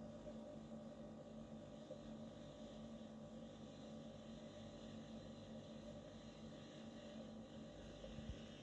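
Near silence: low room tone with a faint steady hum.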